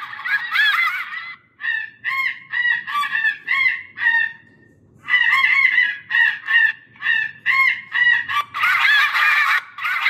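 Recorded goose calls played through an electronic game caller's horn speakers: a run of separate honks, a pause of about a second around the middle as the track changes, then more honks building into a flock of geese honking together near the end.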